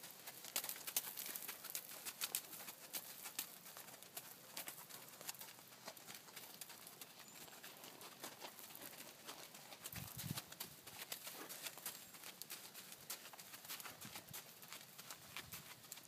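Pony's hooves falling on a sand arena at a walk: a quiet, uneven run of soft footfalls and small crunching clicks.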